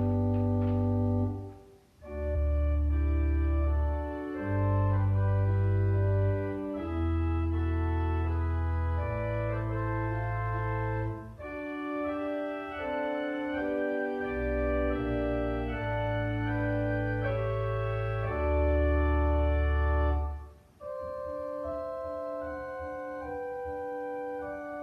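Organ playing slow, sustained chords over deep pedal bass notes. The music breaks off briefly about two seconds in and again about twenty seconds in, then goes on more quietly without the deep bass.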